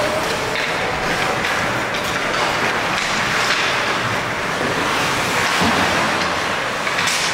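Steady hiss of ice-hockey skate blades scraping and carving the rink ice, mixed with arena crowd noise, with a few sharp clacks, one near the end.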